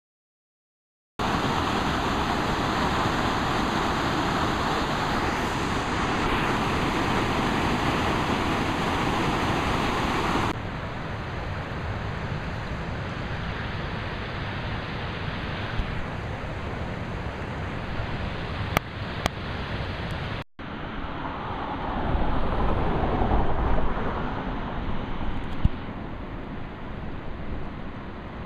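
Steady rushing of river water flowing through a concrete channel and spilling over a low weir, heard in several cut-together stretches. The level changes at the cuts, and the sound drops out briefly about twenty seconds in.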